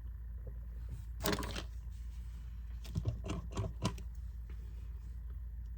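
Small handling noises from a plastic lip gloss tube being opened and tried: a short rustle about a second in, then a quick cluster of small clicks around three to four seconds in, over a steady low hum.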